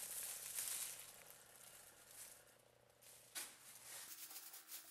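Plastic bag rustling as it is pulled off a wooden handle, loudest in the first second, with a short sharp click about three and a half seconds in.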